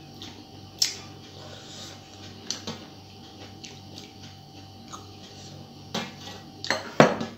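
Dishes clicking and knocking: a glass curry bowl and a steel plate, with a few sharp clicks spread through and a louder clatter near the end as the bowl is set back down. A faint steady hum runs beneath.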